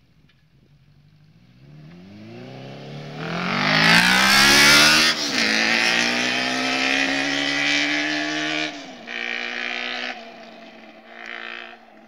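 Suzuki quad's engine accelerating hard past, revs climbing as it approaches, then the pitch falling as it goes by. It pulls away at held revs with two brief breaks, as it shifts up, and fades.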